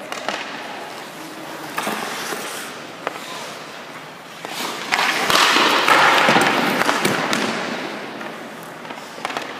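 Hockey sticks and pucks striking the ice and the goalie's gear: sharp clacks that echo, a few seconds apart. Around the middle, skate blades scrape across the ice for about three seconds.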